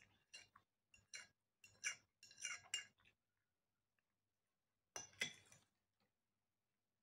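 Metal fork clinking and scraping against a plate: several short clinks in the first three seconds and a louder one about five seconds in.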